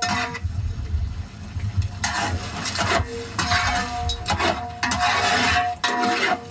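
A large ladle stirring and scraping chicken frying in a wide pan over a wood fire, with a frying hiss. A low rumble in the first two seconds gives way to a run of short scraping strokes.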